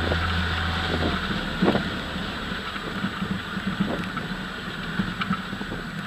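Off-road 4x4's engine running as it drives along a rutted dirt track, with wind noise on the outside-mounted microphone. A low hum drops away about a second in, and a few light knocks come through.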